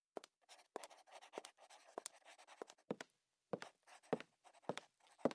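Computer keyboard being typed on: quiet, irregular key clicks, about two a second.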